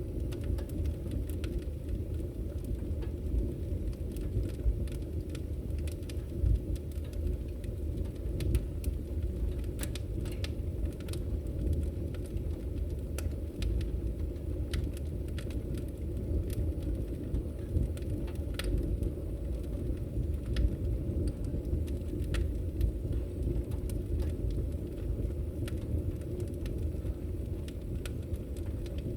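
Wood fire burning in a fireplace: a steady low rumble of the flames with irregular sharp crackles and pops scattered throughout.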